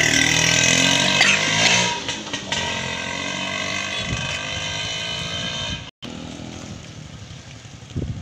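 Motorcycle engine running on a test run after a rebuild, loudest for the first two seconds, then running lower and steadier. The engine has not run in three years before this rebuild. The sound drops out briefly near six seconds.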